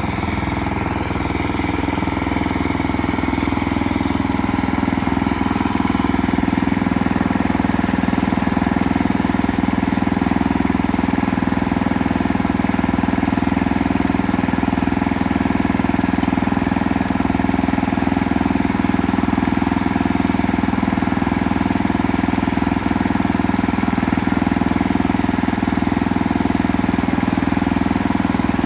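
Engine running steadily, growing somewhat louder over the first few seconds and then holding an even note.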